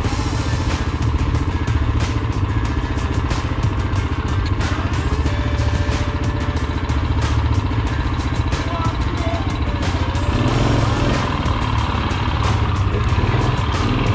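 Rokon Trail-Breaker 2x2's Kohler 7 hp single-cylinder engine running steadily as the bike crawls through snow, with a little more throttle about two-thirds of the way in. Frequent light clicks run over the engine note.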